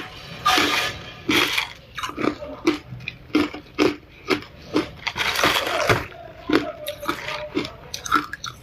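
Ice being bitten and chewed close to the microphone: a run of sharp crunches about two a second, with longer grinding crunches about halfway through.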